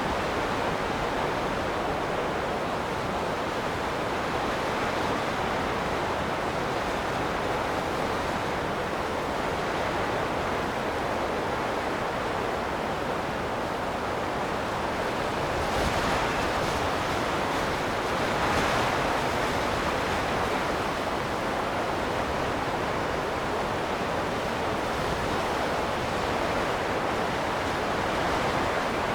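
Wind blowing steadily, a continuous rushing noise that swells slightly in two gusts a little past the middle.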